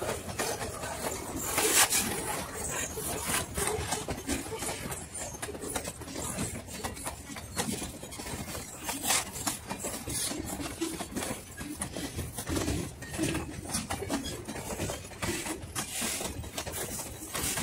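Freight cars (covered hoppers and boxcars) rolling past on the rails, with a rapid, irregular run of wheel clicks, clatter and rattling over steady rumbling noise. The footage is sped up three times, so the clatter comes fast.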